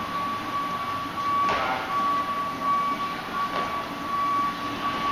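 A person doing burpees, her body and hands dropping onto the gym floor twice, about two seconds apart, each time with a thump. A constant high-pitched whine runs underneath.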